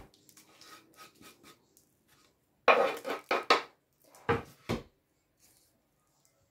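A metal spoon knocking and scraping on a wooden cutting board while gathering cake crumbs: light clicks at first, a quick cluster of loud knocks about three seconds in, and two more about a second later.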